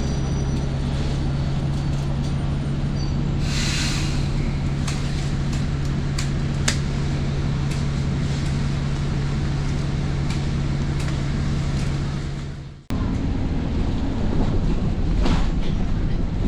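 A vehicle engine running with a steady low hum and rumble, with a few light clicks and rattles. About 13 s in it cuts off abruptly to a rougher, uneven rumble.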